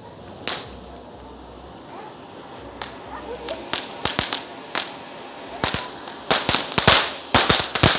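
Ground fountain firework spraying sparks with a steady hiss, cut by sharp cracks. The cracks come singly at first, then crowd together and get louder over the last couple of seconds.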